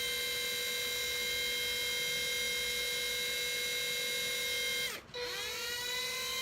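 Panasonic EY7441 14.4 V cordless drill running at a steady high whine, winding down and stopping about five seconds in, then starting again and winding back up to speed.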